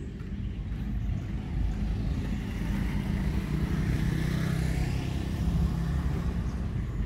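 A motor vehicle passing, its engine and tyre noise swelling in the middle and easing off, over a steady low rumble.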